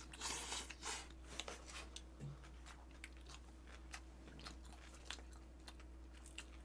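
Close-miked eating sounds: chewing a mouthful of bibimbap, with many small wet mouth clicks and light crunches scattered through.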